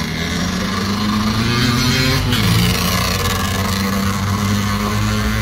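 Level crossing barrier boom rising, with a steady mechanical hum that dips in pitch about two seconds in, while a road vehicle goes past, loudest a little after two seconds.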